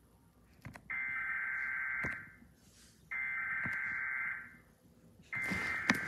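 Emergency Alert System SAME header data bursts playing from a TV's speakers during a Required Weekly Test. They come as three harsh, buzzy bursts of warbling digital tone, each a little over a second long and about a second apart.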